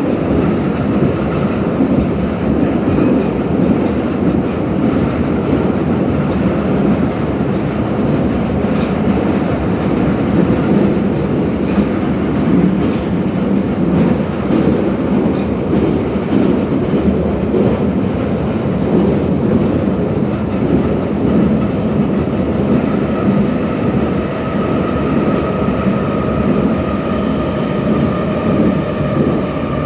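Interior of a moving 81-717/714 ('numbered') metro car running through the tunnel: a steady loud rumble of wheels on rails and running gear. A faint whine comes in over the rumble in the last several seconds.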